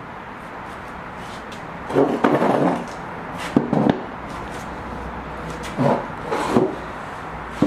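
A few short bouts of rubbing and scraping, with a click near the end, over a steady background hiss.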